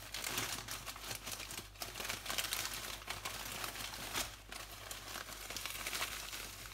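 Crumpled newspaper packing rustling and crinkling as it is handled, with many irregular crackles.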